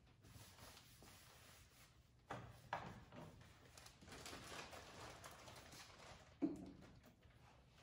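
Quiet handling sounds of small items being picked up and set down: a couple of soft knocks, faint rustling, then one sharper knock about six and a half seconds in.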